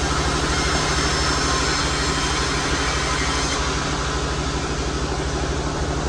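Sawmill machinery running, with a steady low pulsing hum. A brighter hiss of the saw cutting through an albasia log stops about three and a half seconds in.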